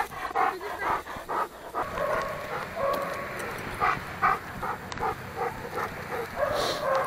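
Several shelter dogs barking, the barks coming in quick succession for the first couple of seconds and then more scattered.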